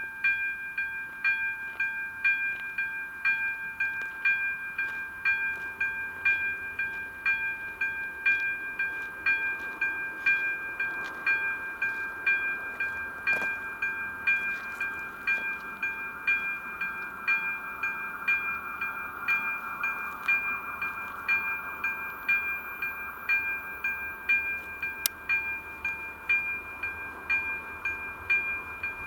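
Level-crossing warning bell of AŽD 97 crossing signals ringing a steady chiming tone, about two strokes a second. It signals that the crossing is closing for an approaching train.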